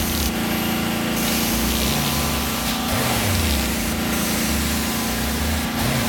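Carpet-cleaning extraction machine running with a steady drone, while the extraction wand sprays and sucks water through the carpet, its hiss swelling and fading several times.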